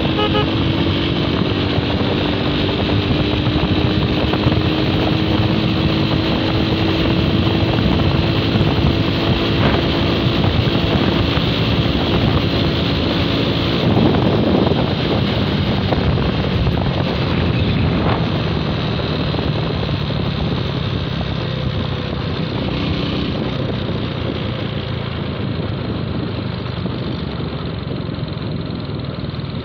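Motorcycle engine running steadily at cruising speed, its pitch rising slowly over the first half, with wind rushing over the microphone.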